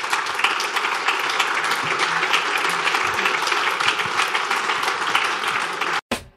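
Audience applauding: a dense patter of many hands clapping that cuts off suddenly near the end.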